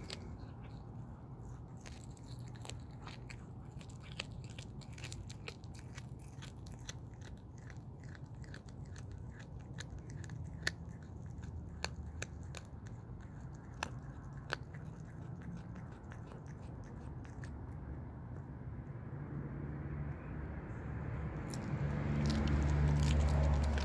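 A cat chewing and crunching on a freshly caught mouse, head first: a steady run of small, sharp crunches and clicks. A low rumble grows louder near the end.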